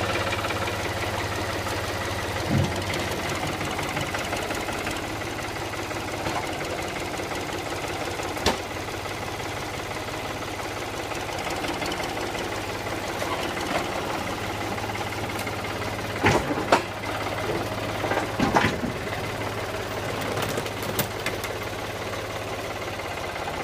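Tractor engine idling steadily, with a few sharp knocks scattered through it.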